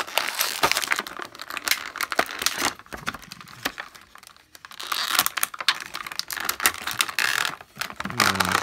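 Clear plastic bag crinkling and crackling in irregular bursts as a plastic toy figure is worked out of it by hand, with a quieter lull a few seconds in.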